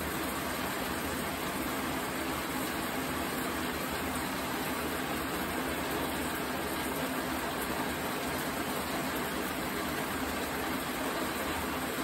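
Steady, even background noise with a low hum, unchanging throughout, with no distinct sounds standing out.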